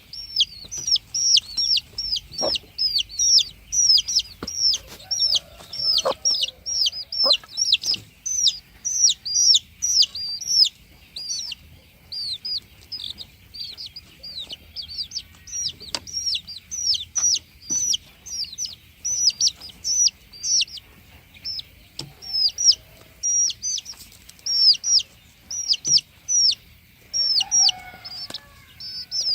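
Chickens, most likely young broiler chicks, peeping without pause: a dense run of short, high, falling peeps, several a second. A few faint knocks and an occasional lower cluck sound underneath.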